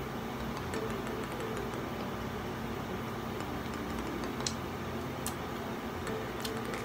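Chewing a peanut-loaded Cloud9 Overload chocolate bar, with a few faint crunchy clicks over a steady low room hum.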